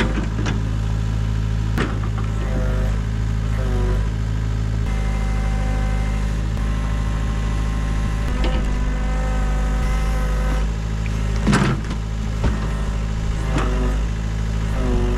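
Excavator diesel engine running steadily under work, with a higher whine that shifts in pitch a few times and several sharp knocks, the loudest about eleven and a half seconds in.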